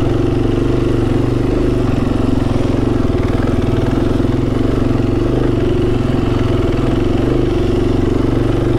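Adventure motorcycle's engine running steadily while riding, with an even, unbroken note.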